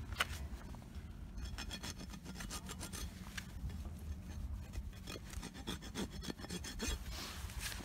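Hoof rasp filing a barefoot horse's hoof during a trim, in repeated back-and-forth strokes.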